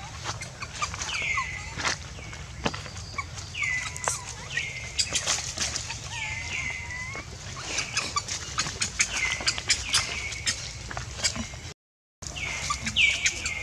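A high call repeated about once a second, each sliding down in pitch and levelling off, over many short rustling clicks of footsteps and movement in leaf litter. The sound cuts out for a moment near the end.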